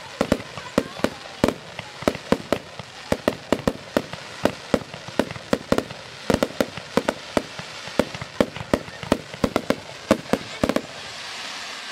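Fireworks display: a rapid, uneven string of sharp bangs, several a second, over a steady hiss. The bangs stop about eleven seconds in, leaving the hiss.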